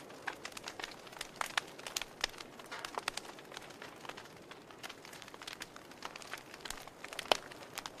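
Wood fire crackling in a fireplace: irregular pops and snaps from the burning logs over a faint hiss, with one sharper pop near the end.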